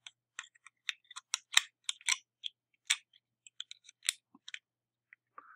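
Light, irregular metal clicks and ticks as a lever and spacer are fitted by hand onto the pivot post inside the steel case of a Yale three-lever mortice sashlock.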